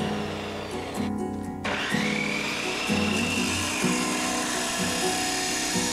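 Abrasive chop saw cutting steel pipe: about two seconds in the motor spins up with a rising whine, then the wheel grinds through the metal. Background music plays throughout.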